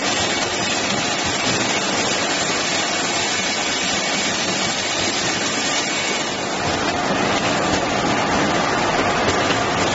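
Automatic bottle labelling machine and its conveyor running, a steady dense hiss of machinery; it grows a little louder and fuller about two-thirds of the way through.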